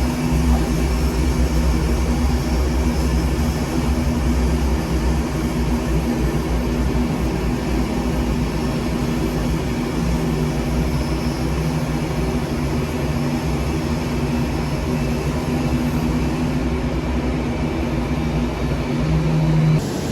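Jet engines of a Boeing 787-8 airliner running steadily: an even rush of noise with several low steady hum tones, broken off by a sudden change just before the end.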